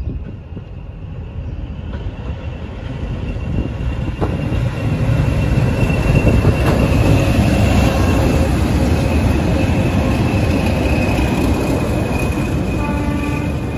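A pair of British Rail Class 20 diesel locomotives passing under power, their English Electric 8SVT engines growing louder over the first few seconds and then running loud and steady, with a steady high whine over the rumble.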